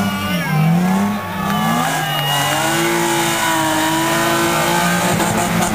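Rally car engines revving hard on a gravel stage: the pitch climbs and falls over the first couple of seconds, then holds near steady as a boxy Lada saloon comes on at full throttle, and drops near the end.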